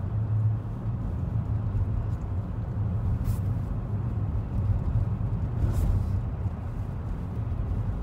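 Steady low rumble of a car's engine and tyres on a snowy road, heard from inside the cabin, with a faint brief hiss twice, about three and six seconds in.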